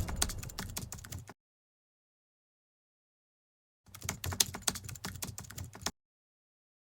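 Rapid irregular clicking like keyboard typing, in two bursts: about a second at the start, then about two seconds after a gap of dead silence.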